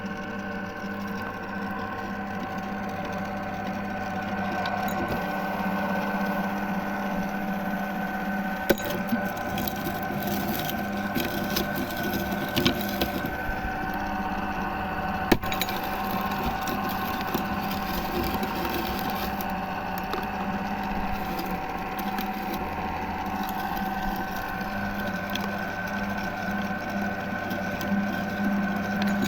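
Meat grinder running with a steady hum while hard lollipop candy cracks and crunches inside it, with a few sharp snaps along the way.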